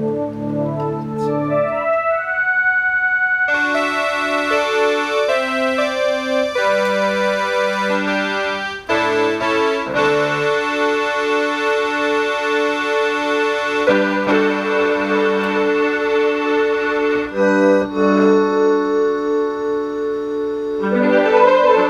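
Casio CTK-240 portable keyboard being played: sustained chords and melody notes in an organ-like tone over a moving bass line. The tone turns much brighter about three and a half seconds in.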